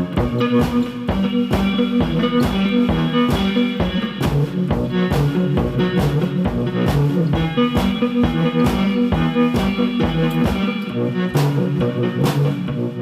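Background music: electric guitar over drums with a steady beat.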